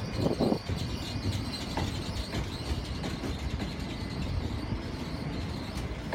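ScotRail Class 365 electric multiple unit running slowly past into the platform. Its wheels make a steady low rumble on the rails, with a few sharp clicks.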